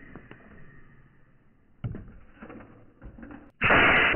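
Homemade pneumatic cannon, a converted nail gun run off a backpack air tank, firing: a sudden loud blast of compressed air about three and a half seconds in, lasting about half a second. A single softer knock comes about two seconds in.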